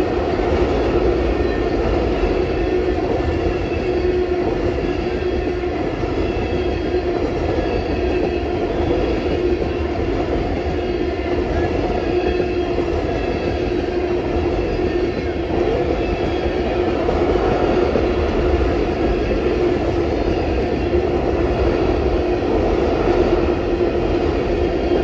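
Freight train of tank cars rolling past at close range: a continuous rumble of steel wheels on the rails with a steady hum running through it.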